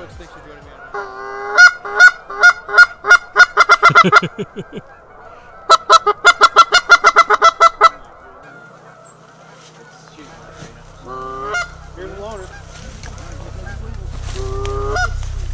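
Goose honking: two fast runs of loud, evenly spaced honks, about four to five a second, then a few single honks near the end.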